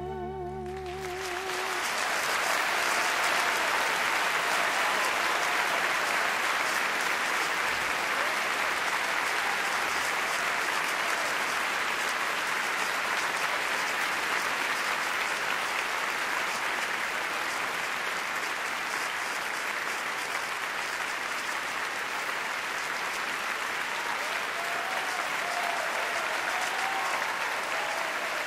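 Concert audience applauding at the end of a song, swelling over the first couple of seconds and then holding steady. A held final note with vibrato dies away about a second in as the applause starts.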